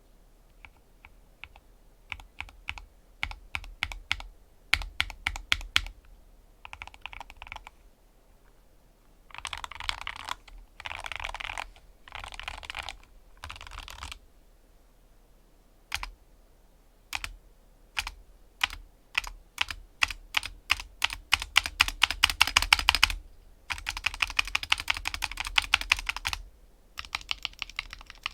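Skyloong SK64S keyboard with lubed optical Gateron Red linear switches over foam, its keys struck hard in bursts. Fast rolls across the bottom-row keys give dense runs of clicks, and near the end the spacebar is pressed over and over with a deeper clack.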